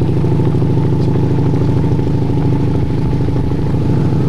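A motor vehicle's engine running steadily close by at an unchanging low speed, with a fast, even pulse.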